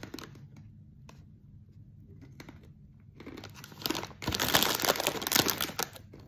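Clear plastic snack bag crinkling as a hand rummages among the pork rinds inside it. The crinkling starts about three seconds in and comes in bursts that grow loudest toward the end.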